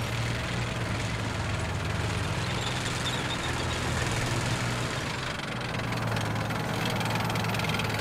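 A tank's engine running with a steady low hum.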